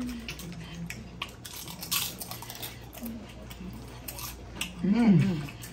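Tortilla chips crackling as they are pulled from a loaded nacho platter and crunched while eating, heard as scattered crisp snaps. A short voiced hum comes about five seconds in.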